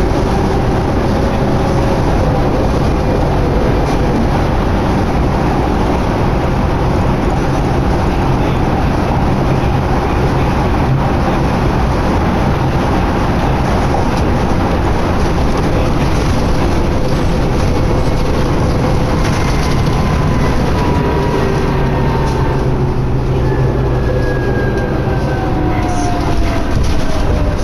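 Inside a New Flyer D60LFR articulated diesel bus under way: a steady engine drone and road noise. Near the end a whine falls in pitch.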